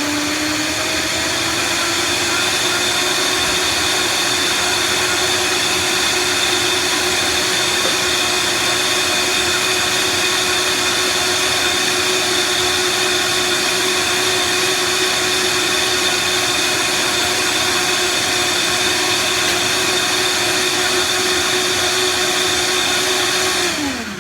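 Countertop blender running at high speed, blending ice, banana and water into a smooth, creamy shake. Its motor holds a steady whine, then winds down and stops near the end as it is switched off.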